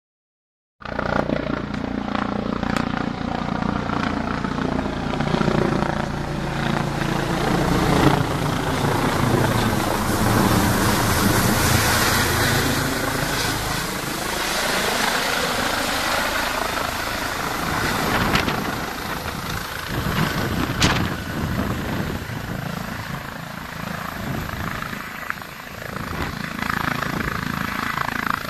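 Air rescue helicopter's rotor and turbine engines as it flies overhead and comes down to land. The sound starts suddenly about a second in, and its pitch slowly shifts as the helicopter passes over.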